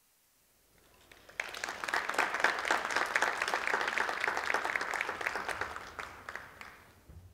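Audience applauding, beginning about a second and a half in after a moment of near silence, then dying away near the end.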